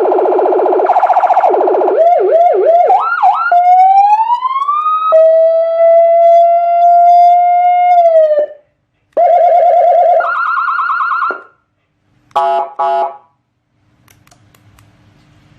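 AS820 200-watt electronic siren amplifier sounding through its loudspeaker, stepping through its tones. First a harsh rapid warble, then a fast yelp and one long rising wail, then a steady high tone that drops away. After a short pause come a hi-lo two-tone and two short horn-like blasts.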